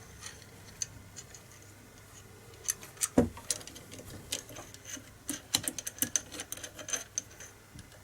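Small metal parts of an air rifle's trigger mechanism clicking and tapping as they are handled and fitted during reassembly. Scattered sharp clicks start about two and a half seconds in, with one louder knock just after three seconds.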